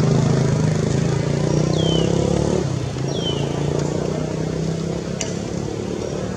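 A motor vehicle engine running steadily nearby, a low hum that eases off a little under three seconds in. Two short high falling whistles sound about a second and a half apart, and there is a single sharp click near the end.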